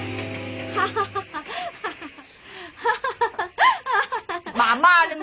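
A held music chord fades out in the first second. Then several children laugh together in short, high peals, louder toward the end.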